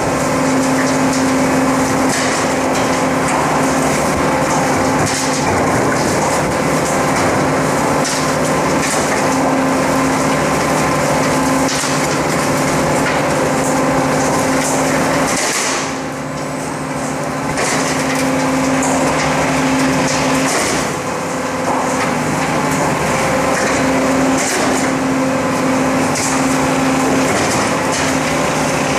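Rotary-drum garbage truck's compactor running, a steady mechanical drone, with frequent cracking and crunching as bagged rubbish is drawn into the drum and crushed. The drone dips briefly about halfway through.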